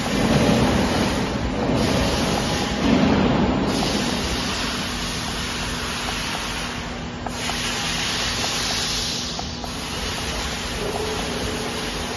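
Steady rushing, hissing background noise with a low rumble, with a few faint clicks as the flowmeter converter's keypad buttons are pressed.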